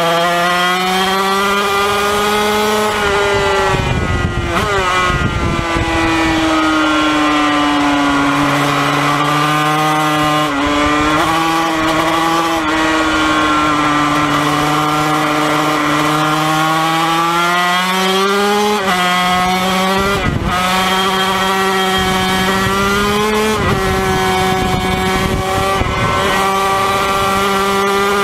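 Yamaha TZ250 two-stroke racing engine at full race pace, heard onboard. Its high buzzing note climbs and falls repeatedly, with several sharp dips followed by renewed climbs as the rider shifts gears and drives through corners.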